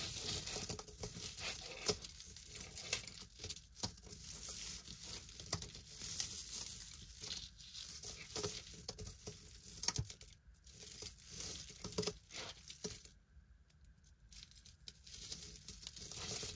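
Rustling and crinkling as jewelry and its packaging are handled, with many light clicks. It goes nearly quiet for a moment about 13 seconds in.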